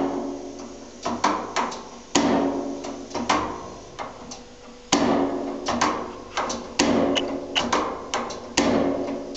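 Gas water heater's pilot igniter being clicked over and over, about twenty sharp clicks at an irregular pace, each with a brief metallic ring. This is an attempt to relight the pilot flame after it has gone out.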